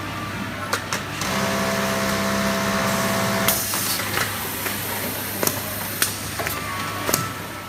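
Automatic lockstitch hemming machine running: a steady machine hum, with a higher whine and clatter for about two seconds from around a second in. A short hiss comes around three and a half seconds in, and there are scattered sharp clicks.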